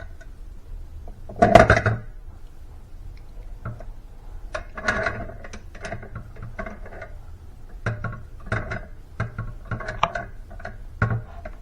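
Kitchen clatter of a utensil knocking and scraping against a bowl while mashed potatoes are scooped out for portioning: one loud clunk about a second and a half in, then a string of short irregular knocks and scrapes.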